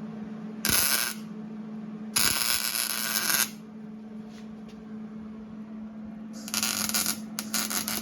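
Electric arc welding in short bursts, laying tack welds on a steel bracket: four crackling, sizzling runs, the longest a little over a second, the others about half a second each, with a steady low hum underneath.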